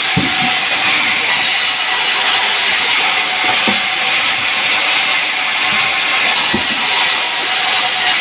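Sawmill saw cutting sengon wood: a loud, steady noise, with three brief low knocks spread through it.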